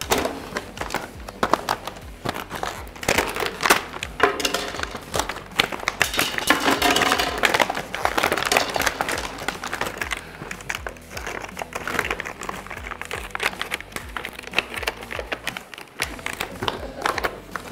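Cardboard-and-plastic packaging of mini hockey sticks crinkling, crackling and tearing as it is pulled and crushed with padded goalie gloves. The crackles come thick and fast, busiest in the first half.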